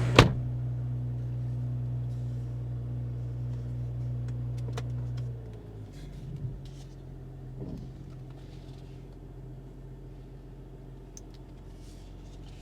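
BMW X3 M40i's turbocharged inline-six idling fast after a cold start, with one sharp click just after the start. About five and a half seconds in, the fast idle drops and the engine settles to a quieter, steady idle.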